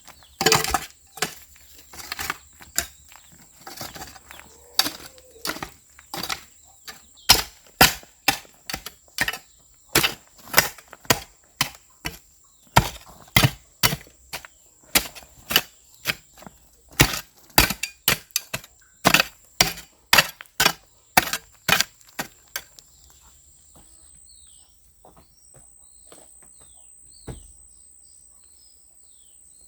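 Repeated sharp strikes of a hand tool, about two a second, stopping about three-quarters of the way through. After they stop, birds chirp over a steady high insect buzz.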